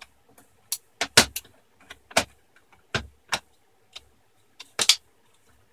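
Sharp plastic-and-metal clicks and knocks, about a dozen, as a replacement Western Digital hard disk in its metal bracket is handled and pressed into the drive bay of a Dell Inspiron 15 3542 laptop. The loudest knocks come about one, two and five seconds in.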